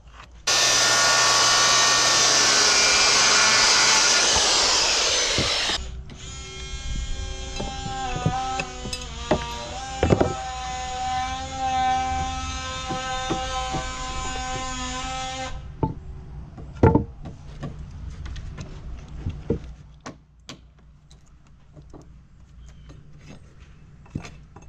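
A circular saw cuts through a new pressure-treated pine deck board for about five seconds. Then a steady hum with several pitched tones and a few knocks runs for about ten seconds, and scattered taps and knocks of boards and tools follow.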